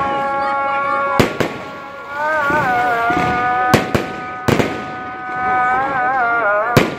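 Aerial fireworks bursting overhead in several sharp bangs, some in quick pairs. Under them runs a sung chant in long, wavering held notes.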